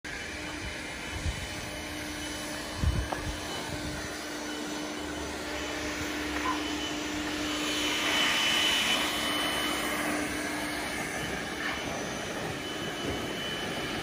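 A steady distant engine noise, like a passing aircraft or vehicle, swells to its loudest about eight seconds in and then eases off. Two low thumps come near the start.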